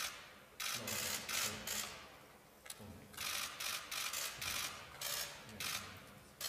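Press photographers' camera shutters firing in rapid bursts, one burst after another about every second.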